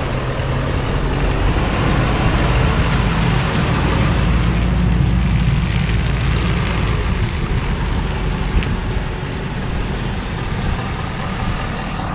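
Ford F450 Super Duty dually pickup's engine running steadily as the truck drives slowly through a tight full-lock U-turn, a little louder in the first half.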